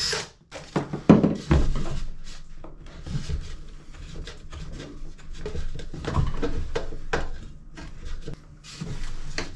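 Handling noises of a bungee cord being hooked and stretched over a boat engine's exhaust muffler: irregular clicks, knocks and rubbing. The sharpest knock comes about a second in.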